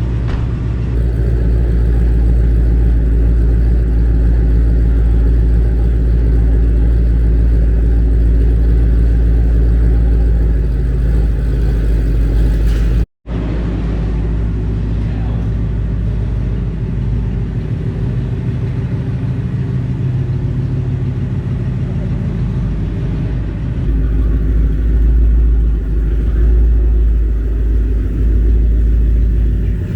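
Ford Mustang GT's 5.0 V8 engine running with a low rumble. The sound drops out for an instant about 13 seconds in, and the engine grows louder again near the end.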